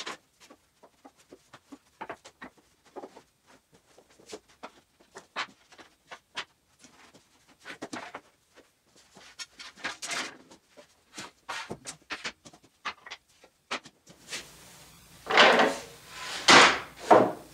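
Light scattered knocks and clicks of wooden strips being lifted apart and handled, then louder scraping near the end as long wooden boards are slid into a storage rack.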